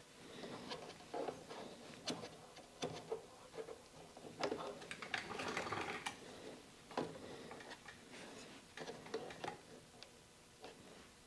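Yellow plastic iVac blast gate being handled and fitted into flexible corrugated dust-collection hose: irregular clicks, knocks and rustles, with a denser scraping stretch about halfway through.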